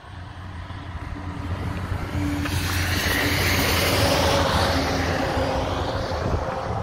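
A motor vehicle passing by: engine and road noise swelling to a peak about four seconds in, then slowly fading, over a steady low hum.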